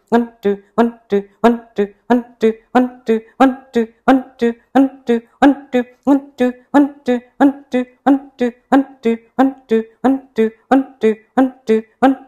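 Kapalabhati breathing: rapid, rhythmic, forceful exhalations through the nose, about three a second, each a short, sharp, slightly pitched puff with a passive inhale between.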